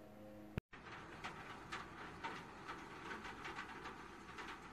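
Faint background hiss with soft, irregular ticking, broken by a brief dropout about half a second in.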